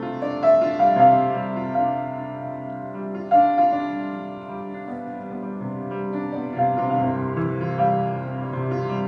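Solo piano playing a slow, gentle improvised piece, sustained notes ringing over a low bass, with a new melody note struck about every second or two.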